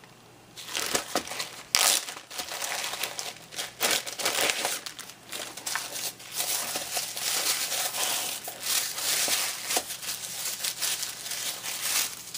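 Paper and wrapping crinkling and rustling with quick crackles as a handmade scrapbook photo folio is unwrapped and handled.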